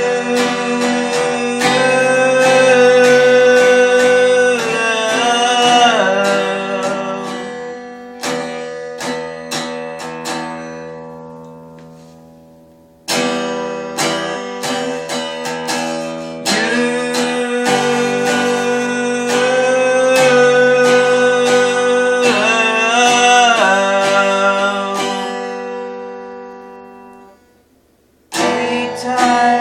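Acoustic guitar playing, strummed chords and plucked notes that ring out and fade, in two long passages with a short break near the end.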